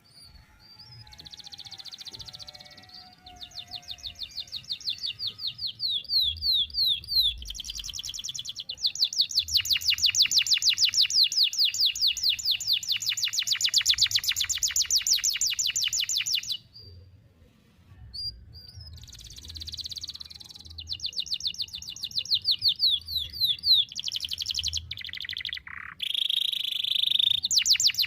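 A canary singing in rapid trills of repeated high notes, including one long unbroken roll lasting about eight seconds. After a pause of about two seconds it resumes with shorter trills that change phrase often.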